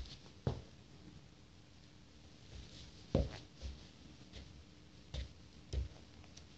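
A socked foot sliding into a white Nike Air Force 1 leather sneaker, with leather rustling and a handful of soft thumps of the sole on a wooden floor, the strongest about three seconds in.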